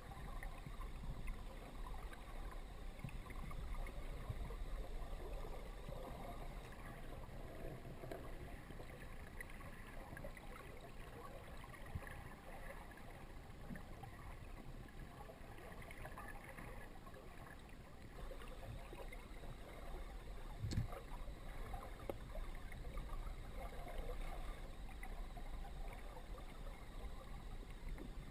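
Muffled underwater rush of river current heard through a GoPro's waterproof dive housing, with faint irregular crackles and a single sharp click about two-thirds of the way through.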